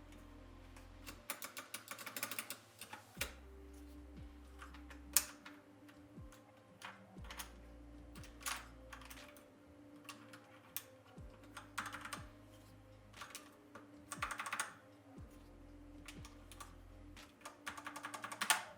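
Typing on a mechanical keyboard fitted with vintage-look SA-profile keycaps: several quick bursts of rapid key clicks with short pauses between them.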